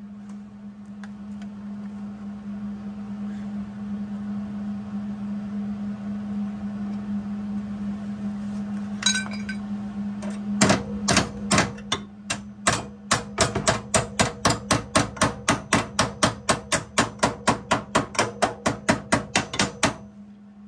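Rapid, even hammer strikes on the steel subframe at the fresh weld, about five blows a second, beginning about halfway through after a single metallic clink. A steady low hum runs underneath.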